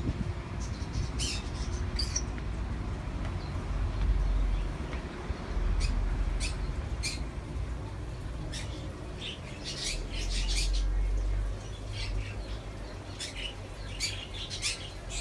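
Many small cage birds, canaries and finches, chirping in short high calls that grow busier in the second half, over a low rumble that swells several times.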